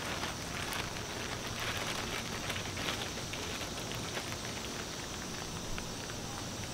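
Crinkling and crackling of a wet Cuben fiber (Dyneema composite) pack liner being handled as its roll-top closure is unrolled, a run of irregular small crackles with a few sharper ones.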